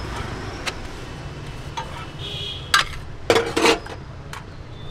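Metal spatula clanking and scraping on a flat iron tawa, with steel utensils clinking: a handful of sharp clanks, the loudest cluster about three and a half seconds in.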